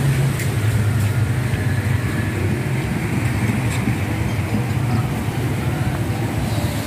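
Motorcycle engine running steadily at low revs, a constant low hum.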